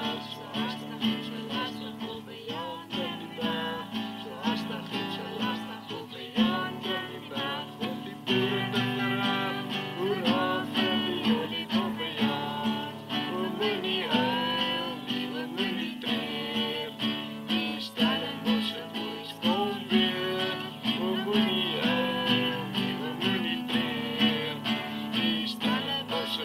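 Classical guitar strummed in a steady rhythm, with a voice singing a song over it.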